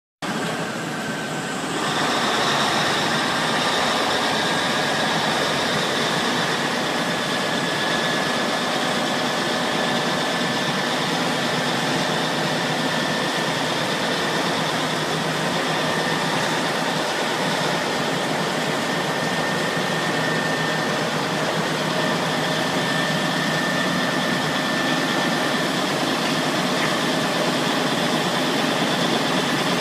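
Large diesel engine of a Peterson Pacific 4400A horizontal grinder running steadily, with a steady high whine over the engine noise. The sound grows louder about two seconds in, then holds level.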